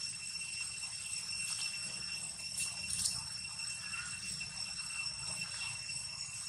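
Steady high-pitched drone of forest insects, several even tones held throughout, with a few faint rustles and clicks from close handling.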